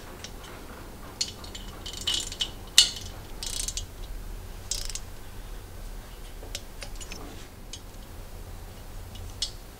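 Hand ratchet wrench clicking in short bursts as nuts are run down on the rocker-arm stud conversion of a Harley-Davidson Milwaukee-Eight engine's cylinder head. The bursts come through the first five seconds, and only a few fainter ticks follow.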